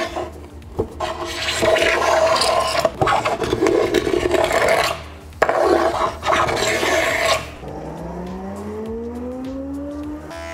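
Hand scraper pushed in several long strokes along the glue joints of a glued-up wooden panel, scraping off dried glue squeeze-out. About seven seconds in the scraping stops and music comes in with a rising glide.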